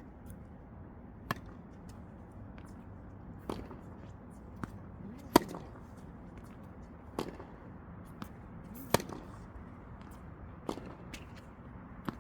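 Tennis balls struck by rackets in a rally drill: a sharp pop about every two seconds, the loudest about five seconds in, with fainter ball bounces on the court between hits.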